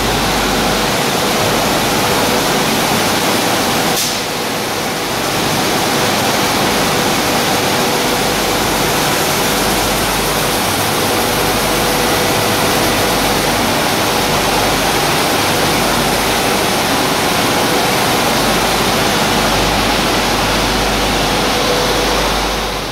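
Roller flour mill machinery running: a loud, steady rush of noise with a faint steady hum, dipping briefly about four seconds in.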